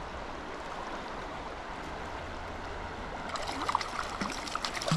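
Stream water running steadily over a shallow riffle; from about three seconds in, sharp splashes and clicks as a hooked trout thrashes at the surface while being played in.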